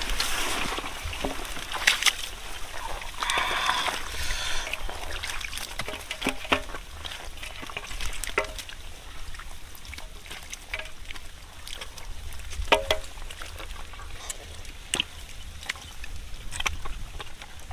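Wet handling of catfish in a shallow muddy puddle: sloshing and squelching with scattered sharp knocks and slaps, a short burst of rustling noise about three seconds in, and a steady low rumble underneath.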